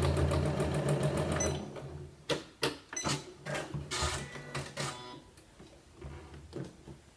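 Janome Memory Craft 9900 computerised sewing machine running a straight stitch with a rapid, even stitch rhythm over a motor hum, stopping about one and a half seconds in. Several separate clicks and knocks follow.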